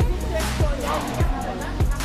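Background music with a steady thumping drum beat, about three beats a second, under a wavering melody line.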